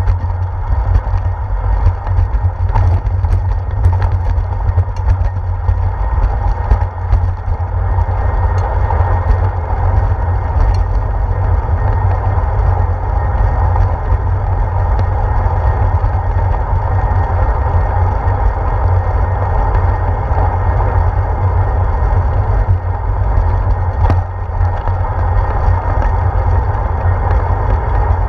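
Riding noise picked up by a handlebar-mounted GoPro on a moving bicycle: a steady low rumble of wind and road vibration, with scattered clicks and knocks from bumps in the path.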